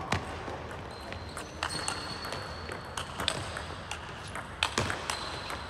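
Table tennis ball being hit back and forth in a rally: a string of sharp, uneven clicks as the celluloid-type ball strikes the rackets and bounces on the table.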